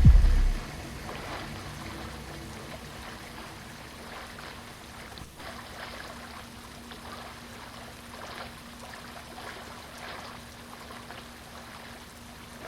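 A deep low rumble cuts off about half a second in, leaving faint running, trickling water that goes on steadily. A faint steady hum joins about halfway through.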